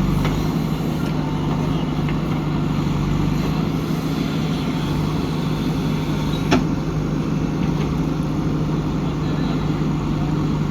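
JCB 3DX backhoe loader's diesel engine running steadily, with a single sharp knock about six and a half seconds in.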